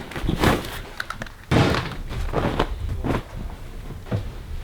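A series of knocks and thuds from gear being handled and packed, the loudest about a second and a half in.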